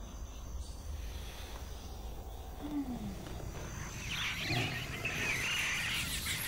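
Faint outdoor animal ambience: a low steady rumble, a single short falling call a little before halfway, then from about four seconds in a dense high chirping.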